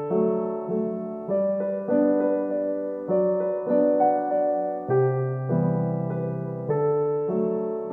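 Background music: soft electric piano playing chords that change every second or so.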